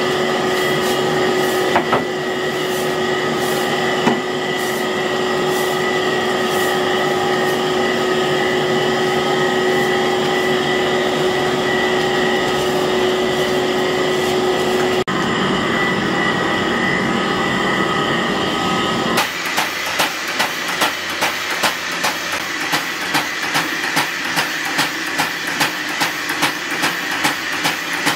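Machinery running steadily with a constant whine, changing about two-thirds of the way in to a regular knocking of about one and a half strokes a second.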